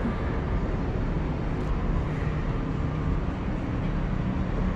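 Steady low rumble and hiss inside a moving Roosevelt Island Tramway cabin as it travels along its cables, with a faint hum underneath.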